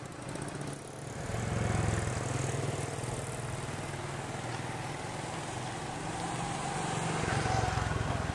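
A small engine running, its hum swelling and easing a couple of times.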